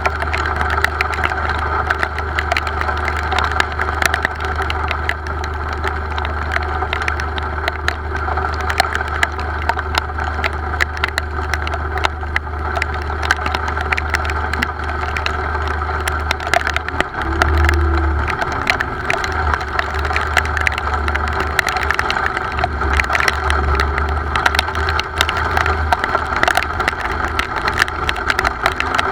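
Rain falling: dense, irregular tapping of drops on a hard surface, over a steady low rumble that breaks up and comes and goes in the second half.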